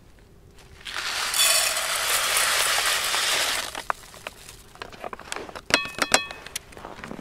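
Dry rice grains pouring from a foil pouch into a small metal pot: a steady rattling hiss for about three seconds. Then lighter scattered ticks and a few ringing metallic clinks as the last grains are shaken out.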